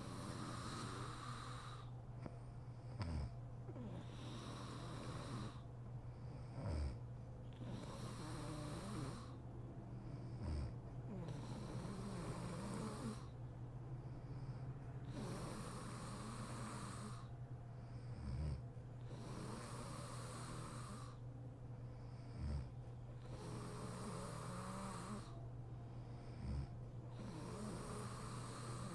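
A sleeping woman snoring in a slow, even rhythm, one breath about every four seconds, with short, low snorts every few seconds. A steady low hum runs underneath.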